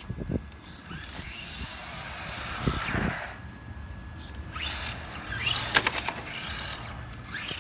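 Electric motor of a Tamiya RC car running on a 2S LiPo battery, whining up and down in pitch through two bursts of speed, one about a second in and another about halfway through.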